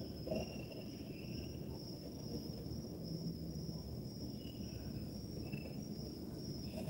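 Insects chirring in one steady high tone, with shorter, lower chirps now and then, over a low background rumble.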